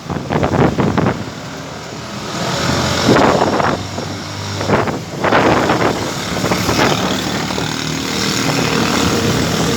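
Dust-storm wind rushing and gusting against the microphone, with strong gusts about three and five seconds in. A vehicle engine runs steadily underneath toward the end.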